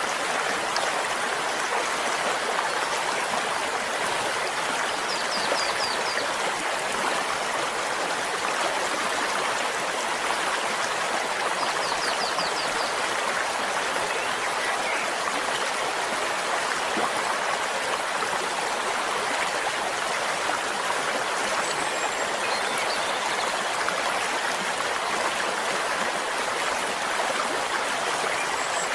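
Flowing stream: a steady, even rush of running water.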